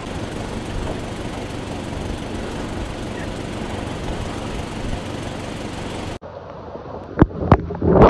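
Steady rush of hurricane wind and rain. About six seconds in it cuts abruptly to a closer recording where strong gusts buffet the microphone with several sharp thumps that grow louder toward the end.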